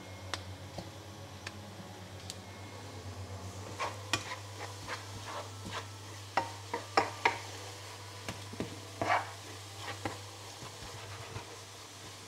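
Onions frying in a pan with a light sizzle, stirred with a utensil that scrapes and clicks against the pan in short irregular strokes through the middle of the stretch, over a steady low hum.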